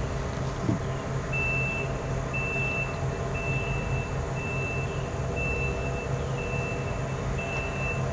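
Mean Green battery-powered mower's electric motors humming steadily. From about a second in, a high-pitched warning beeper sounds about once a second.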